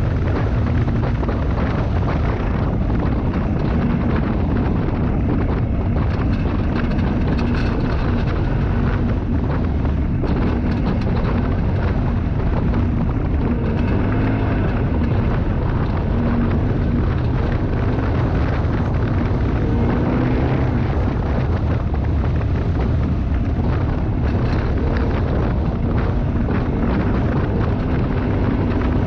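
Side-by-side UTV engine running at speed on a rough dirt track, a steady drone whose pitch wavers as it slows and speeds up, with wind buffeting the microphone and frequent knocks and rattles from the bumps.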